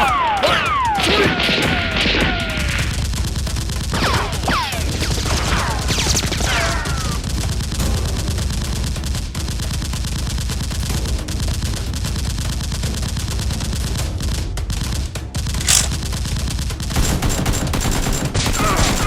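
Sustained volleys of rapid gunfire sound effects, shots packed closely together. Falling whistling sweeps cut through them in the first several seconds.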